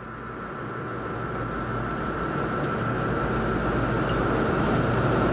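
Airliner cabin noise: a steady rushing hum with a thin, steady high whine, fading in and growing louder.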